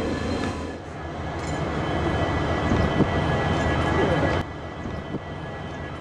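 Motor scooter engine running with road noise, growing louder as it comes closer, then dropping suddenly to a quieter outdoor background about four and a half seconds in.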